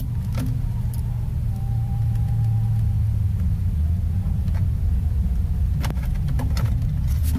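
A steady low rumble, with a scatter of sharp plastic clicks as the laptop's keyboard deck and bottom case are pressed and snapped together, several of them close together near the end.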